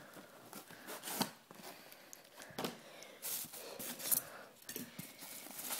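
Hands handling a cardboard shipping box and pulling foam packing out of it: irregular scrapes, rustles and knocks of cardboard and foam, with a few sharper scraping strokes.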